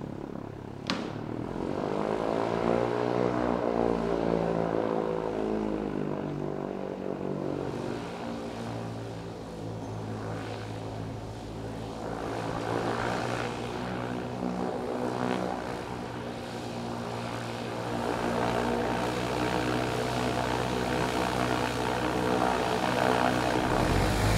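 Piston engine and propeller of a taxiing motorglider running at low power, the engine note shifting up and down as it moves, with a sharp click about a second in. It grows louder near the end as the aircraft passes close.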